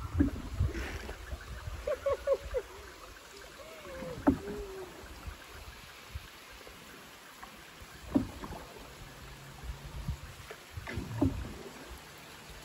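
Wooden dugout canoe moving through still water, with about three sharp knocks a few seconds apart from paddle strokes against the hull and water. A few short whistled calls in the first five seconds.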